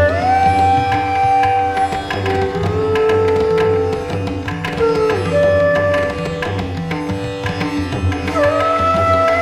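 Indian classical-style background music: a held melody line that slides into each note, over a steady drone and a tabla-like drum rhythm.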